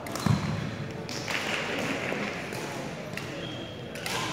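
Badminton rally: a racket strike on the shuttlecock with a loud thud just after the start, then scattered footsteps and taps on the wooden gym floor.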